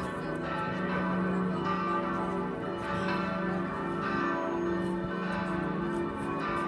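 Four church bells of the Karlskirche ringing together in a partial peal: two bells cast in 1736 by Johann Baptist Dival, tuned d' and e', and two cast by Perner in 2013, tuned f-sharp' and a'. Their strikes overlap in a continuous, unbroken wash of ringing tones.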